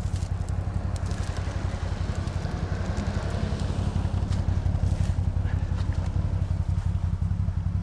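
Quad bike (ATV) engine running steadily at low revs, with a fast even pulse and no rise or fall in pitch.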